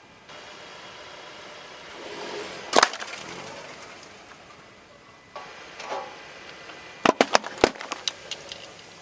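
Crunchy objects cracking and splintering as a car tyre crushes them. There is one sharp crack about three seconds in, then a quick run of snaps and cracks near the end.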